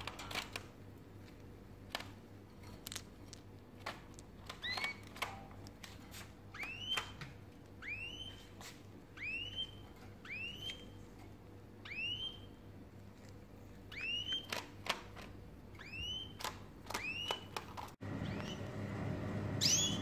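A small caged finch calling over and over, a short rising call about once a second, with light clicks in between.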